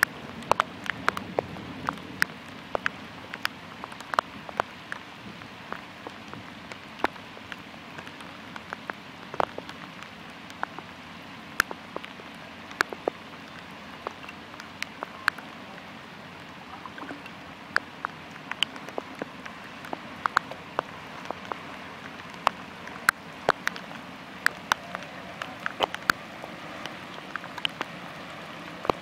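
Steady rain falling, with many sharp, irregular drop hits close to the microphone over a constant hiss.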